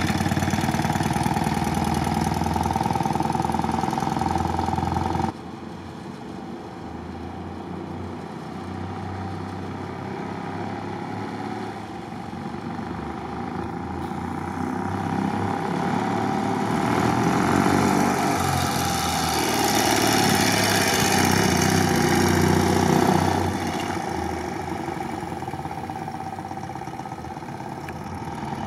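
BMW R80 GS motorcycle with a sidecar attached, its air-cooled boxer-twin engine running at low speed as it rides slowly around. The level drops suddenly about five seconds in, swells as the rig comes closer, and drops again abruptly a few seconds before the end.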